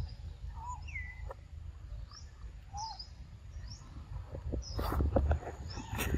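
Small birds chirping in short, separate calls over a low rumble. In the last two seconds a run of sharp crackling and rustling clicks takes over as a macaque moves off with food.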